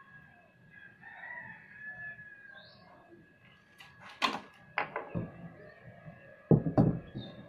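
Cloth being handled and rustled, then large tailor's shears cutting through blouse fabric on a table, with a few loud strokes near the end. A rooster crows faintly in the background about a second in.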